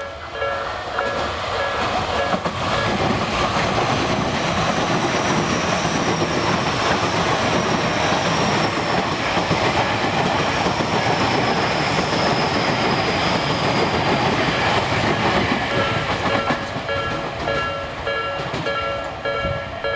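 An electric train passes over a railway level crossing, its wheel and running noise building about a second in and holding loud until about sixteen seconds. Before and after it, the crossing's electronic warning bell rings in a steady repeating pattern.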